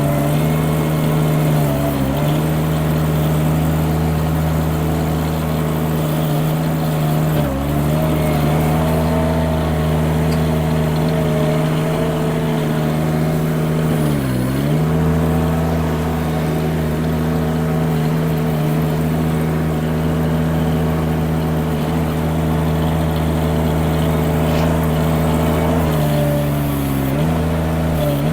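Mini skid steer engine running steadily at high speed while the machine works, its pitch dipping briefly four times before recovering.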